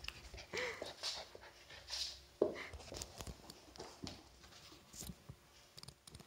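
Swiss White Shepherd puppy playing with a rope toy: rustling, chewing and small clicks, with a short whine about half a second in and a sharper, louder puppy sound about two and a half seconds in.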